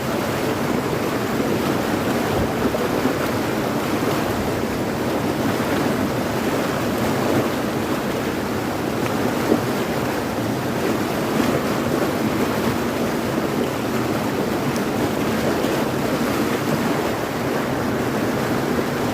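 Rushing river water, a steady, loud noise of the current with no breaks.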